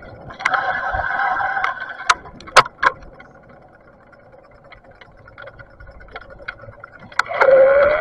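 Whine of a Bafang BBS mid-drive e-bike motor under assist. It stops after a couple of seconds, followed by a few sharp knocks and rattles as the bike jolts, then quiet coasting. Near the end the whine starts again, rising in pitch as the motor spins up.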